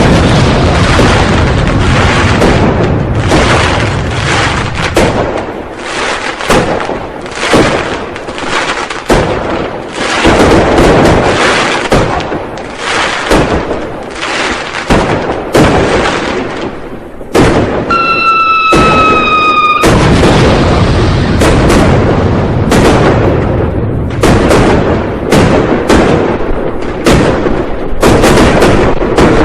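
Firecrackers and fireworks going off continuously, a dense string of overlapping bangs with no pause. About 18 seconds in, a whistling tone that slides slightly down sounds for about two seconds over the bangs.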